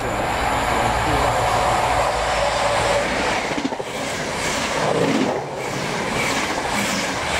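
First Great Western High Speed Train (Class 43 HST) running through the station at speed close by. A heavy low rumble comes first, then the rush of the passing coaches with rhythmic wheel beats in the second half.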